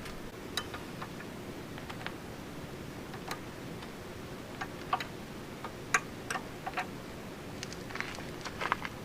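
Irregular light clicks and taps, as of hand tools and small metal parts being handled while a motorcycle's gauge cluster is unbolted. They sound over a steady low background hum, with the sharpest click about six seconds in.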